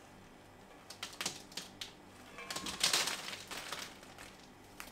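Dozens of small laser-cut foam pieces dropping and bouncing onto a paper-covered tabletop: a scatter of light taps that builds to a dense clatter about three seconds in, then thins to a few stragglers.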